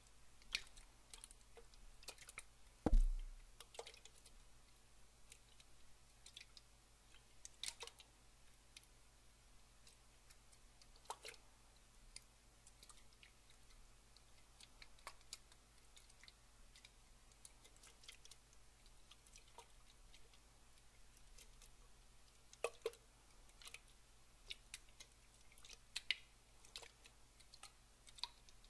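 Water dripping: sparse, irregular small drops and clicks, with one louder thump about three seconds in.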